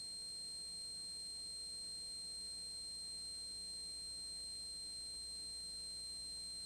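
A steady high-pitched electronic whine with fainter tones above it, over a low hum and light hiss. It does not change at all.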